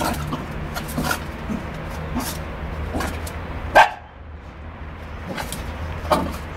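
Small dog barking in short, sharp yaps at a sheep while playing, about six barks with the loudest about four seconds in, over a steady low hum.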